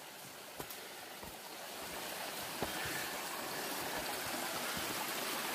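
Rocky mountain creek running over stones, a steady rush of water that grows louder over the first few seconds and then holds.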